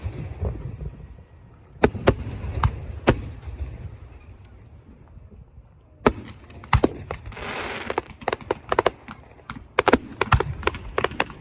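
Fireworks going off. A few separate sharp cracks come in the first three seconds, then a lull, then from about six seconds in a rapid crackling string of many small bangs, with a short hiss partway through.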